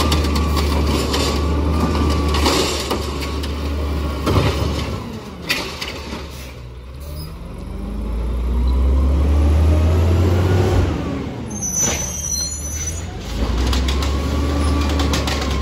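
LNG automated side-loader garbage truck working: its engine revs up and down in spells to drive the lift-arm hydraulics as the arm dumps and grabs yard-waste carts, with sharp knocks of a cart about four and five seconds in. An air-brake hiss comes about twelve seconds in, between the revving spells.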